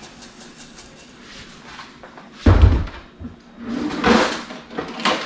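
Kitchen handling noises: one heavy thump about two and a half seconds in, like a cupboard door shutting or a pot being set down hard, followed by shorter rustling and clattering.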